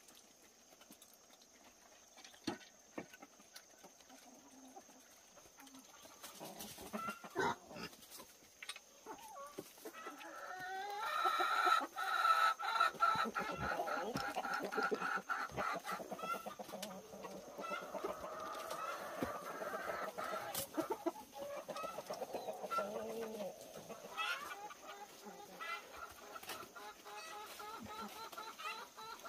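Chickens clucking, several at once: quiet scattered clicks and rustles at first, then the clucking swells about a third of the way in and carries on busily to the end.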